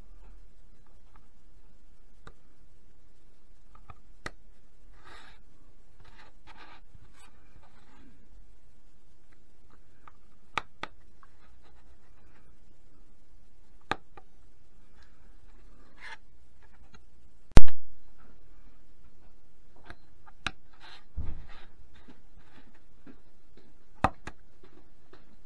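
Craft knife cutting parts out of a thin wooden kit sheet: faint scratching strokes of the blade and small clicks, scattered and irregular. One sharp, loud snap comes about two-thirds of the way through.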